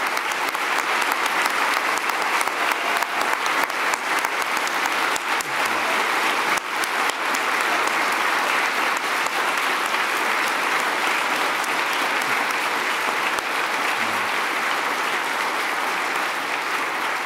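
Steady applause from a large seated audience.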